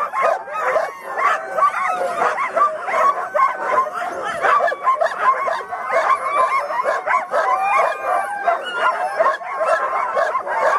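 A team of harnessed sled dogs (huskies) barking, yipping and howling over one another without a pause. It is the excited pre-run noise of dogs waiting on the gangline to be let go.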